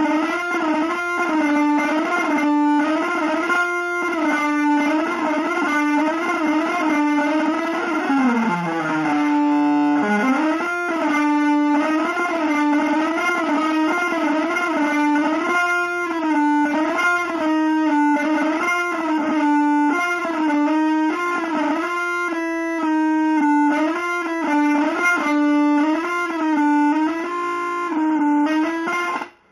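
Electric guitar through effects playing a single melodic line, its notes slid and bent into one another, with a long slide down and back up about eight to ten seconds in. It cuts off suddenly near the end.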